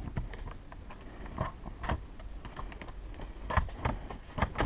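Irregular light clicks and knocks, about nine of them, from hands handling the door's lever and lock hardware and a cordless drill-driver just after the lever screws are tightened.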